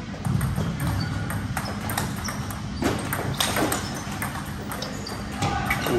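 Table tennis rally: the ball clicking sharply off rubber paddles and bouncing on the table, a string of hits at uneven intervals.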